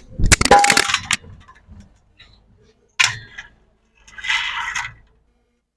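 Metal parts of a dismantled scooter shock absorber clinking and clattering as they are handled. A ringing metallic clatter comes at the start, a sharp clink about three seconds in, and a short scrape a second later.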